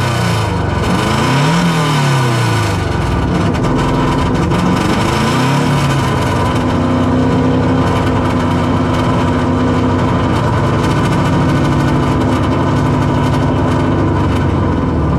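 Subaru Impreza flat-four engine running rough just after a restart. It revs up and back down twice in the first few seconds, then holds at a steady higher speed. It runs loud through an exhaust leak just ahead of the muffler, and is unsettled because its fuel map is still being auto-tuned.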